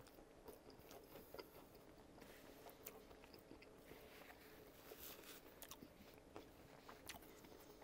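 Faint close-up chewing of a topped hot dog in a soft bun, mouth closed, with scattered small clicks from the mouth.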